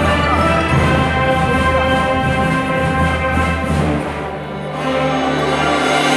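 A large student ensemble playing live, holding sustained chords. It drops briefly softer about four seconds in, then swells louder again near the end.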